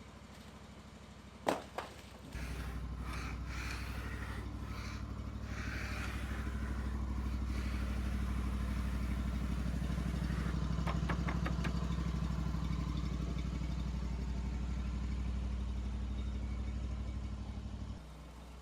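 An engine idling; a sharp knock about a second and a half in, then the engine runs louder and steady for about fifteen seconds before dropping back to idle near the end.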